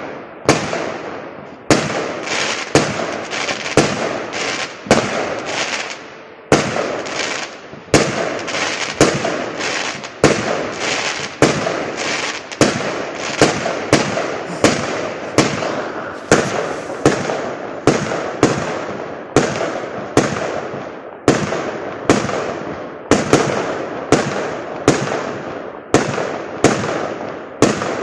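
Aerial fireworks bursting in a steady run of sharp bangs about once a second. Each bang trails off in a fading hiss before the next.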